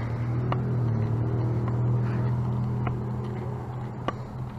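A motor vehicle's engine running close by, a steady low hum that grows a little louder about two seconds in and then fades. Light clicks come about once a second throughout.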